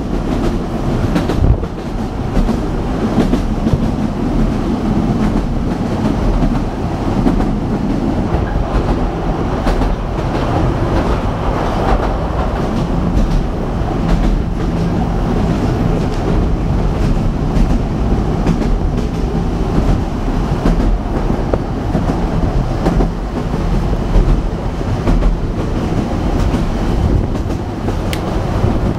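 Narrow-gauge railway coach running along the track, heard from inside an open-sided carriage: a steady rumble of wheels on rails with scattered sharp clicks and clatter.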